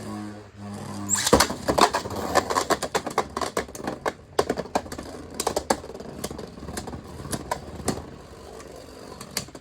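Spinning tops: a 3D-printed Beyblade and a Beyblade X bey spinning and clashing in a plastic Beyblade X stadium, with rapid, irregular plastic clacks of hits against each other and the stadium wall. There is a low steady hum at first, and the hardest collision comes about a second in.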